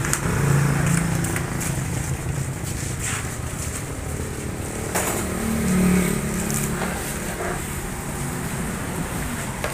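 Steady low rumble of motor vehicle engines, swelling a little about half a second in and again near six seconds, with a few short sharp clicks.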